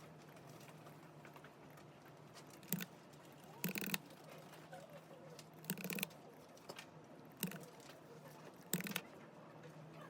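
Crunchy bites and chewing of a snack: about five sharp crunches a second or two apart, over a steady low hum.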